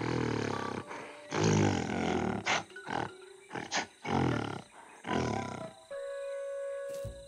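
Cartoon silverback gorilla's roars and growls, about four deep bursts with a couple of sharp short knocks between them, over tense background music that ends on a held chord.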